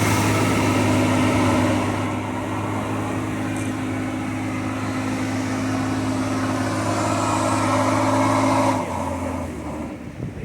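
Boat engine running steadily under a broad rushing noise. About nine seconds in, the engine note drops lower and the sound gets quieter, as the throttle is eased.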